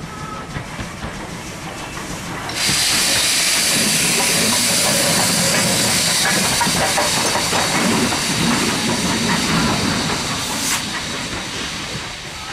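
USA-class 0-6-0 tank locomotive (No. 300, DS238) moving at low speed, with a loud hiss of steam that starts suddenly about two and a half seconds in and cuts off near the end, over the lower rumble of the engine and its wheels.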